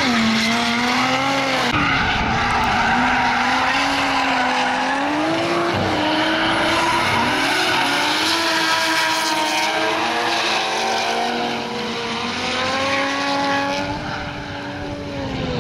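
Drift cars' engines held at high revs while sliding, the pitch wavering up and down with brief dips about two and six seconds in, over tyre squeal from the sliding tyres.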